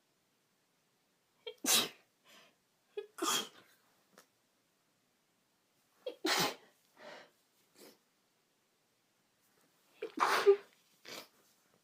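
A woman with a cold sneezing four times, each sneeze with a short catch of breath just before it, and quick sniffles in the gaps between them.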